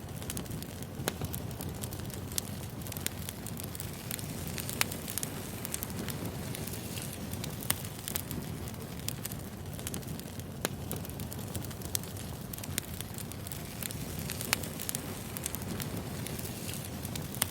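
Burning wood fire crackling: a steady low rush with scattered sharp pops and snaps.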